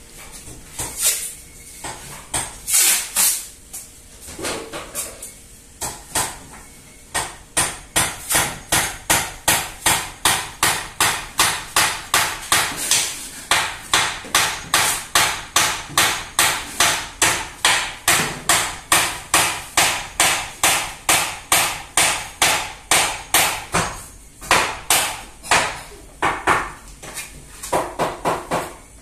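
Hammer blows: a few scattered strikes, then a long steady run of about two to three strikes a second, then scattered strikes again near the end.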